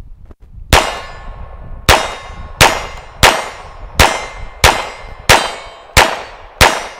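GSG 1911 .22 LR pistol firing nine Remington Thunderbolt rounds in a steady string, about one shot every 0.7 s after a slightly longer gap between the first two, each sharp crack followed by a ringing tail. The pistol runs through the whole nine-round magazine without a stoppage.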